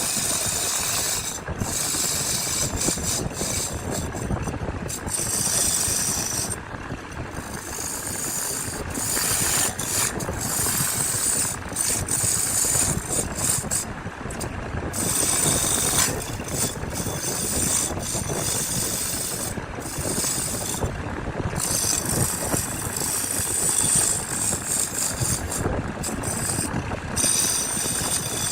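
A woodworking power tool running and working wood, a continuous grinding, hissing noise. The hiss in the upper range breaks off briefly every few seconds.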